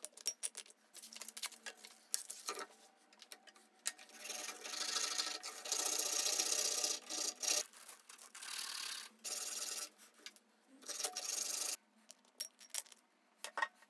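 Small wooden strip rubbed back and forth on sandpaper by hand, scratchy sanding strokes in spells of a second or more with short pauses between. A few light clicks near the end.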